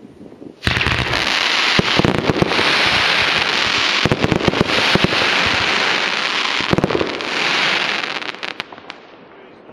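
Firework going off at close range. About a second in it starts suddenly into a loud, continuous hiss packed with sharp cracks. That lasts about seven seconds, then dies away into scattered crackles.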